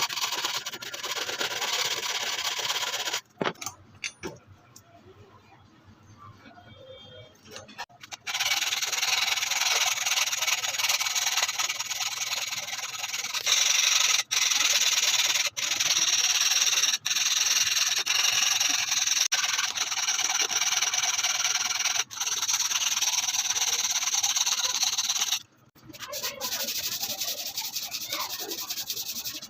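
Steady abrasive rubbing, as of sanding or filing, in several stretches that cut in and out abruptly, with a quieter stretch a few seconds in.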